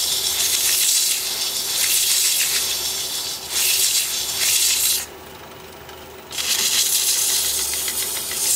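Hand-held abrasive pressed against a small wooden piece spinning on a wood lathe, making a steady hiss of sanding in three stretches, broken off between about five and six seconds in. The lathe's motor hums underneath throughout.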